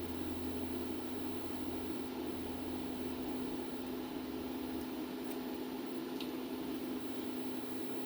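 Steady machine hum holding one constant tone, with a few faint light ticks about five to six seconds in.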